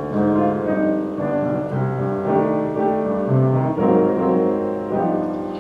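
Piano playing a short instrumental passage of chords and melody notes between sung verses, with no voice.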